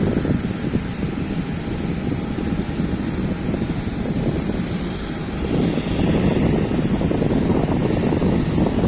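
Aircraft engine noise during a take-off, a dense low rumble with a faint steady whine over it, with wind buffeting the microphone. The rumble grows louder a little past halfway.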